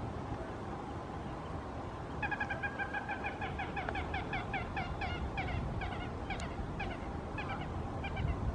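Coscoroba swan calling: a rapid run of short, repeated notes, several a second, starting about two seconds in and lasting some six seconds. Wind noise rumbles on the microphone throughout.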